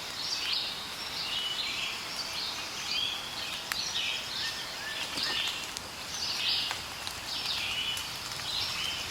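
Birds chirping, many short repeated chirps and trills over a faint steady outdoor hiss.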